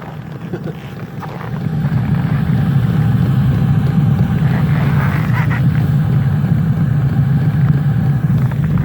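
Small 2 kW Chinese diesel heater running, its combustion fan and burner giving a steady low rumble that grows louder about two seconds in and drops off near the end.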